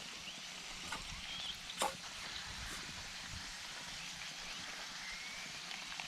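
Bread dough frying in sausage fat in a pan over a wood stove, sizzling steadily, with two short clinks of a utensil about one and two seconds in as the bread is turned.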